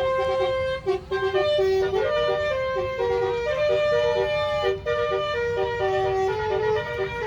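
Bus 'telolet basuri' musical air horn playing a tune of held notes that step up and down in pitch, over a low rumble.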